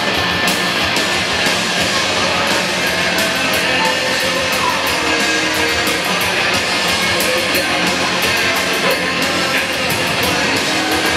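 Rock music with electric guitar and a steady drum beat, played over a PA system in a large arena.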